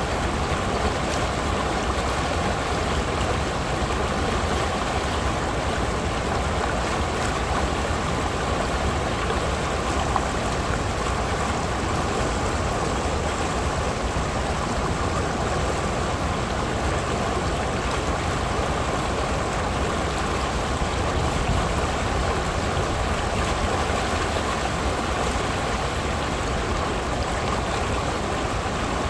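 Shallow creek water rushing and splashing over a rock ledge in a small riffle, a steady, unbroken rush.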